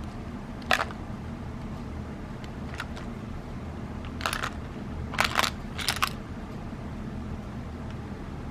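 Handling noise from a metal tin of .22 airgun pellets turned in the fingers: a sharp click under a second in, then a few short clicks and rattles about four to six seconds in, over a steady low hum.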